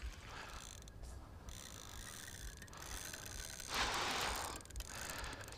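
Daiwa Windcast carp reel's clutch (front drag) slipping and giving line to a running carp, the spool turning with a smooth mechanical sound. A louder rush of noise comes about four seconds in.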